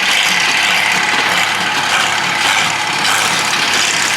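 Hay-baling machinery running steadily: tractor engine noise with a rhythmic mechanical clatter from the small square baler, about two strokes a second.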